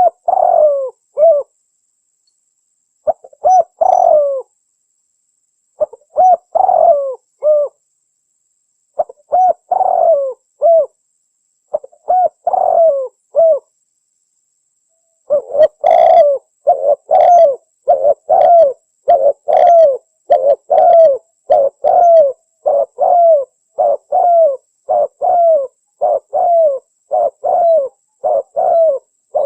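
Spotted dove cooing in short phrases of three or four low coos, separated by pauses of about a second and a half. About halfway through the calls turn into an unbroken run of short, even coos, about one and a half a second.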